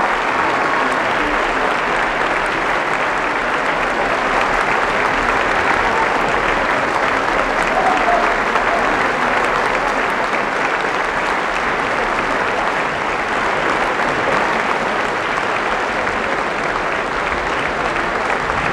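Audience applauding steadily: dense, even clapping that holds at one level throughout.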